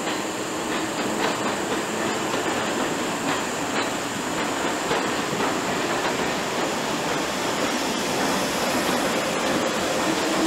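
A train pulling out of the station, its wheels clicking over rail joints amid a steady rumbling noise.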